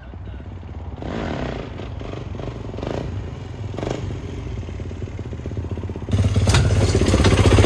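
2021 Kawasaki KX450 dirt bike's single-cylinder four-stroke engine running under throttle as the bike is ridden in a wheelie. It gets much louder suddenly about six seconds in.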